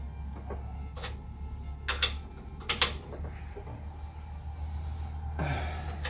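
Metal parts of a hydraulic cylinder being handled as a lock nut is fitted onto the piston rod: a few sharp metallic clicks in the first three seconds, then a short scrape near the end, over a low steady hum.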